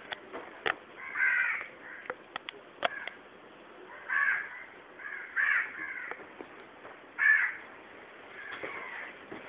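A crow cawing, about five short harsh calls a second or so apart, with a few sharp clicks in the first three seconds.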